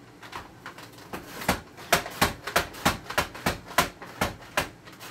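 Push-down vegetable slicer chopping an onion: the top is pushed up and down, its blade clacking through the onion about three times a second in a steady rhythm. The strokes grow louder about a second and a half in.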